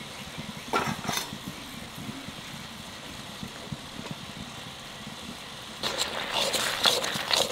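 A spatula stirring and scraping thick mixed-vegetable curry in a large metal kadai, starting about six seconds in with irregular scrapes and knocks. Before that there is only a low steady hiss, with a couple of faint taps about a second in.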